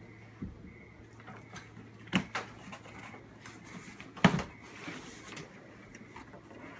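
A large cardboard box being handled and opened on a wooden table: cardboard rustling and scraping, with a few knocks, the loudest a little past the middle.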